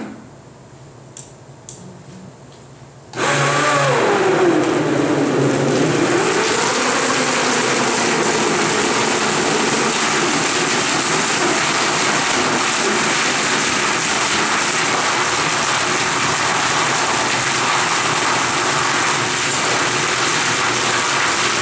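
Countertop blender paused for about three seconds with a few light clicks, then switched on again. Its motor pitch sags for a couple of seconds as it takes the thick raw-cashew and water mix, then settles into a steady run.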